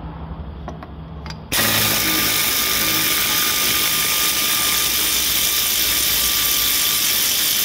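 Pneumatic air ratchet undoing a bolt on the car's underside. About a second and a half in it starts running with a loud steady hiss and a thin steady whine, and it stops at the very end as the bolt comes off.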